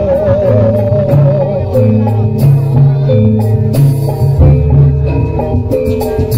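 Javanese gamelan music for a horse-dance (jaranan) troupe: metallophones strike a repeating melody over a low pulsing drum beat, with sharp percussive accents. A wavering held note sounds over it for the first second or two, then stops.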